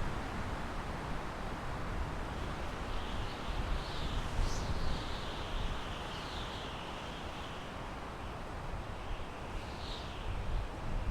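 Wind blowing through pine trees: a steady rushing hiss with a gusty low rumble. A few faint high chirps come through about four and ten seconds in.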